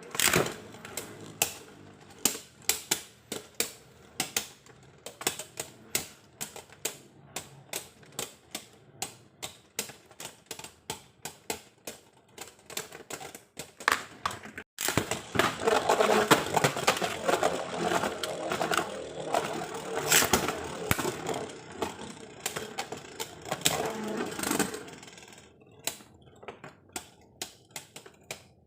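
Irregular light clicks and taps, roughly two a second. From about halfway through to near the end they give way to a denser stretch of rattling and scraping.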